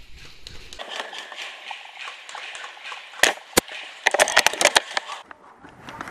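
Airsoft gunfire: two sharp single shots about half a second apart, then a rapid burst of about ten shots in under a second, over soft rustling.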